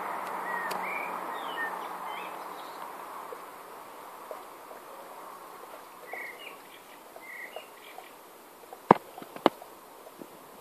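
Garden ambience: small birds chirping now and then over a steady hiss that fades during the first few seconds, with two sharp clicks about nine seconds in.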